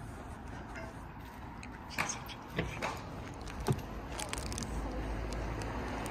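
A few sharp clicks and knocks as a Mercedes CLA Shooting Brake's front door is unlatched and swung open, with a low rumble that grows louder near the end.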